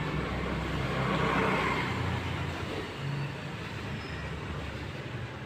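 Steady outdoor background noise, a low rumble with a hiss over it, swelling briefly about a second in and easing off after.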